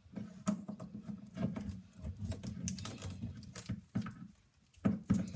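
Plastic wrestling action figures being handled and pushed against each other, giving uneven light clicks, taps and rubbing.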